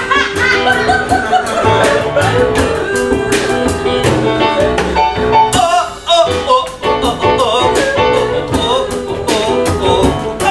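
Live blues-rock jam music: keyboard with voices singing along over a steady beat.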